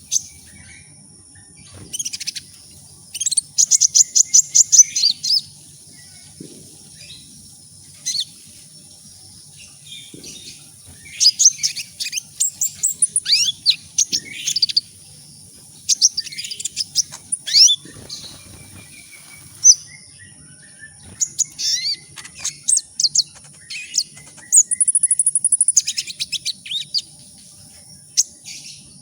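Sunbird ('kolibri ninja') singing: bursts of rapid, high-pitched twittering trills and quick sweeping chirps, separated by short pauses, over a faint steady high whine.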